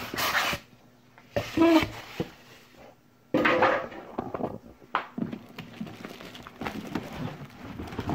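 Cardboard box and plastic wrapping rustling and scraping as a boxed, bubble-wrapped unit is handled: three louder bursts of handling noise in the first few seconds, then lighter rustles and clicks.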